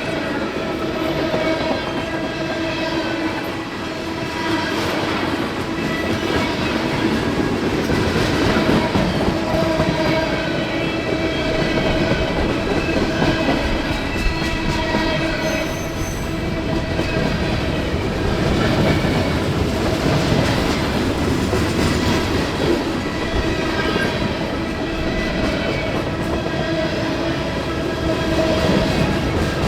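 A long CSX freight train rolling past, its steel wheels rumbling and clattering on the rails without a break. Several steady squealing tones from the wheels run over the top.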